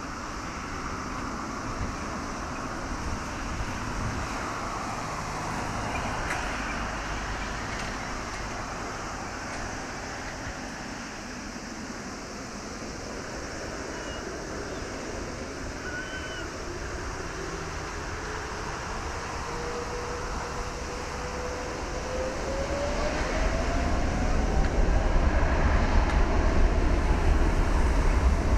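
The Boeing 777-300ER's two GE90 turbofan engines running on the runway, then spooling up to takeoff thrust. A whine rises slowly in pitch from about two-thirds of the way in, and a deep rumble grows louder near the end as the takeoff roll begins.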